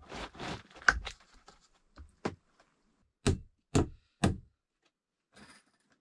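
Rough-hewn wooden planks being set down and knocked into place on a floor: a series of sharp wooden knocks, the loudest three coming about half a second apart in the middle, with some scraping at the start.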